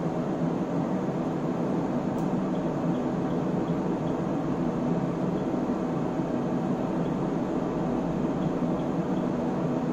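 Cooling fans of an Elgar SW3500A SmartWave AC power source running with a steady, even rush of air noise, with one faint click about two seconds in.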